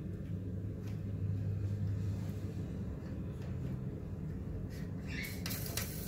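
Low steady hum with a few faint clicks. Near the end there is a short scraping rustle as the plastic shank nut under the toilet tank is turned by hand.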